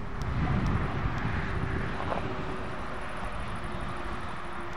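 Heavy diesel truck passing along the road: engine and tyre noise swells over the first two seconds, then eases off into a steady low drone.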